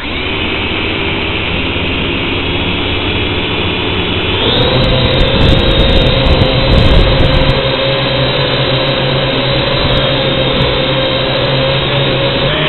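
Radio-controlled drone's electric motors and propellers, heard up close through its own onboard camera. They start suddenly with a steady whine, then rise in pitch about four and a half seconds in as it throttles up to lift off the lawn.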